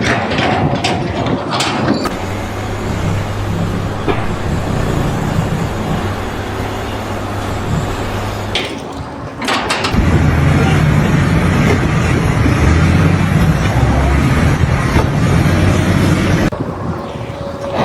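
A heavy vehicle or machine engine running steadily. It breaks off about halfway through and comes back louder.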